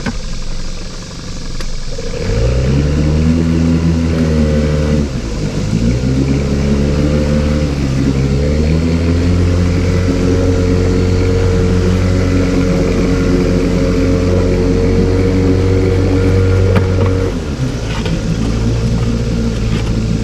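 Boat's outboard motor throttled up about two seconds in, easing off briefly and opening up again, then running steadily at speed before throttling back near the end.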